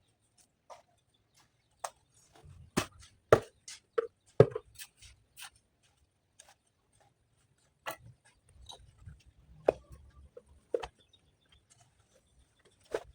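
Irregular sharp knocks and clacks of stone and tools being worked, as in laying foundation stones. The knocks come thick and loudest between about three and five seconds in, then grow sparser.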